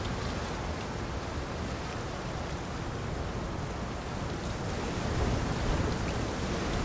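Steady rain, a dense even hiss with a deep low rumble underneath and a few faint drop ticks; it swells slightly near the end.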